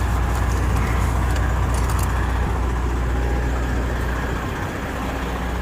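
Heavy diesel truck engine idling, a steady low rumble that weakens a little near the end.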